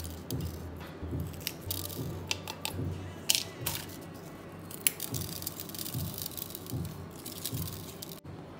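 Dry red chillies crackling and clicking as they are snapped into pieces and dropped into a plastic mixer-grinder jar, with a few sharp dry clicks scattered through. Soft background music runs underneath.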